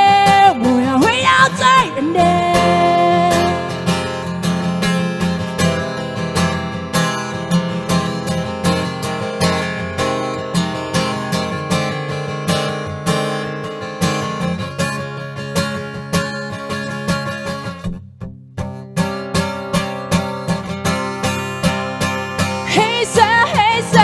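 Acoustic guitar strummed steadily through an instrumental break in a song, with a brief stop in the strumming about three-quarters of the way through. A woman's singing voice trails off at the start and comes back in near the end.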